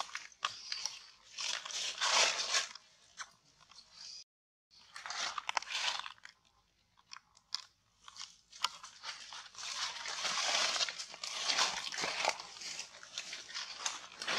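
Dry fallen leaves crunching and rustling in irregular crackly bursts as a macaque walks and rummages through the leaf litter, with a brief total dropout about four seconds in.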